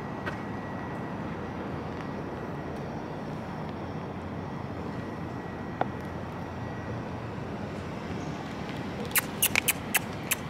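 Steady background hum of city street traffic. Near the end, a quick run of sharp clicks, the loudest sound.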